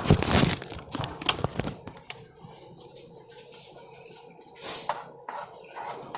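Loud crinkling and rustling, heaviest in the first two seconds, then a quieter steady background with a few scattered clicks.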